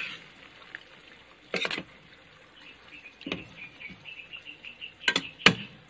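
Metal spoon stirring and knocking against a stainless steel pan of shrimp and spring onions simmering in their juice. A faint bubbling patter runs under a short clatter about a second and a half in, and two sharp clicks of spoon on pan come near the end.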